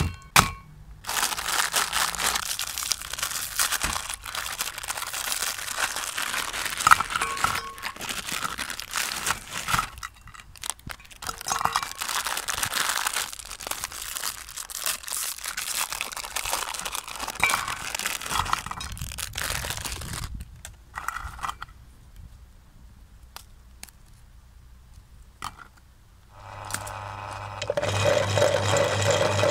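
Plastic Oreo cookie packaging crinkling and tearing in on-and-off bouts as packs are pulled open by hand. Near the end a steady mechanical hum starts up.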